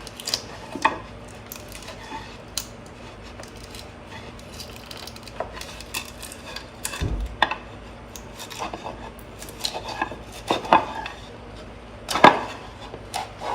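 Wooden drawer parts being handled and worked, with irregular taps, knocks and light scraping of wood. There is a low thump about seven seconds in and a sharper knock near the end.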